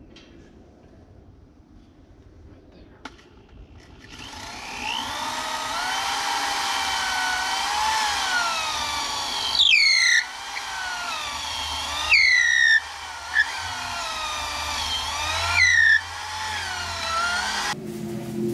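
Power drill running under load, boring into a wooden 4x4 gate post. The motor whine starts about four seconds in and wavers in pitch as the trigger and load change. Three times it sweeps sharply and briefly gets louder, then it stops just before the end.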